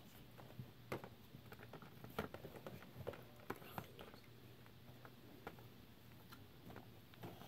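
Near silence with faint room tone and a scattering of small, irregular clicks and taps, the strongest about one and two seconds in.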